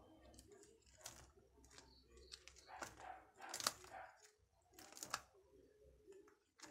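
Faint scattered clicks and rustles from something being handled, the sharpest a click about three and a half seconds in and another about five seconds in.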